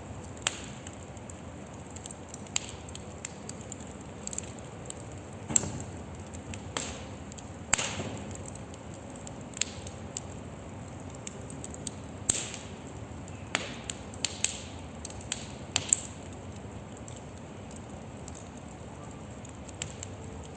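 Wood burning in a fire pit: a steady hiss broken by irregular sharp pops and cracks from the burning wood, a few of them much louder than the rest.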